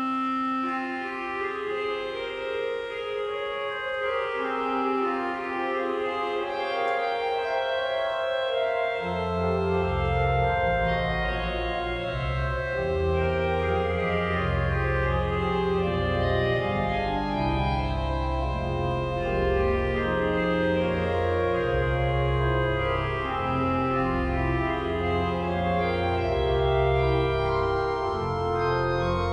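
1912/13 Goll & Cie. pipe organ playing long held chords; deep pedal bass notes come in about nine seconds in and carry on beneath them.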